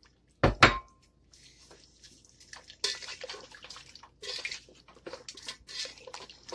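A utensil knocks against a cooking pot once with a brief ring, then a series of short, irregular scraping and rustling sounds as crushed fried onions go into the korma gravy.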